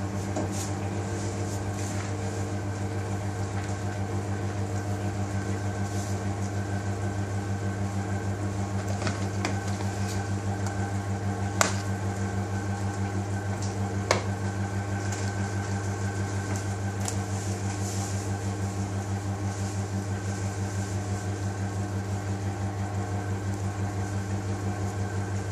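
Steady low electrical hum of kitchen machinery, with a few light clicks and taps; two sharper clicks come about twelve and fourteen seconds in.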